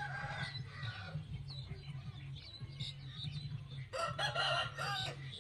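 An animal call, pitched and about a second long, about four seconds in, over a steady low hum.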